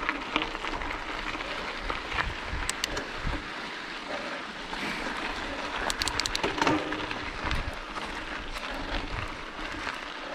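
Scott RC900 mountain bike rolling over a loose gravel forest road: tyres crunching on the gravel with rattling and clicks from the bike, picked up through the handlebar-mounted camera. The rattling is busiest about six to seven seconds in.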